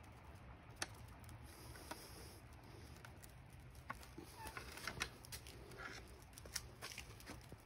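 Faint scattered crackling and ticking as molten aluminum is poured from a steel crucible into lost-foam patterns buried in sand, the foam burning off in flames at the sprue cups. Beneath it is a low steady hum, and the crackles come thicker in the second half.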